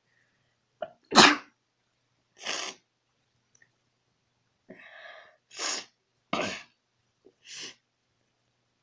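A person sneezing and coughing: about six short, sharp bursts of breath over several seconds, the loudest about a second in.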